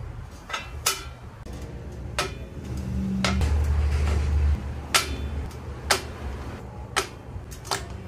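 Aluminium water-cooling blocks with peltier modules clinking against each other and the sheet-metal box as they are set down and stacked: about eight sharp metallic knocks. A low rumble swells about three seconds in and fades about a second and a half later.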